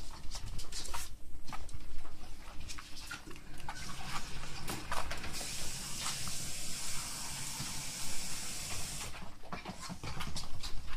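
Beagle puppies moving about, with scattered small clicks and scrabbles of claws and paws. A steady hiss runs for about four seconds in the middle.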